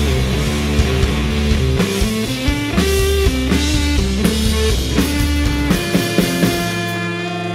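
Live rock band playing an instrumental passage: electric guitars and bass holding sustained notes over a drum kit. The low bass notes drop out briefly near the end.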